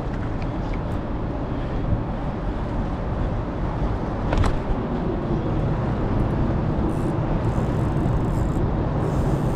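Steady low outdoor rumble of wind and distant traffic, with a single sharp click about four and a half seconds in.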